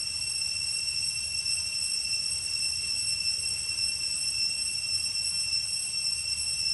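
Cicada chorus: a steady, high-pitched buzzing drone at one unchanging pitch, over a low rumble of wind on the microphone.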